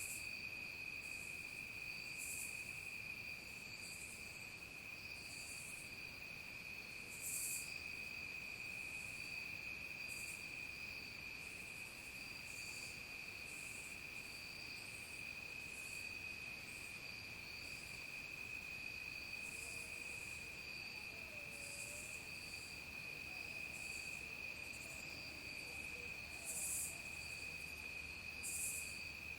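Evening insect chorus: crickets keep up a steady high trill without a break. Over it, another insect adds very high rasping pulses roughly once a second, a few of them louder.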